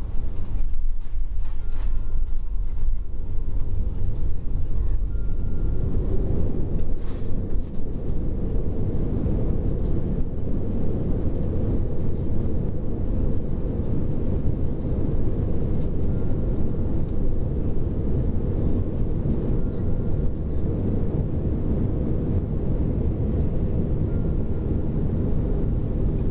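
Cabin noise of an Airbus A340-300 taxiing after landing: a steady low rumble from its four CFM56 engines at idle and the rolling airframe, heard from inside the cabin, growing fuller about six seconds in.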